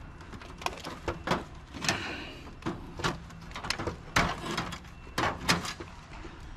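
Irregular clicks and knocks of computer parts being handled and set down, about a dozen sharp strikes spread unevenly, the loudest a little past the middle.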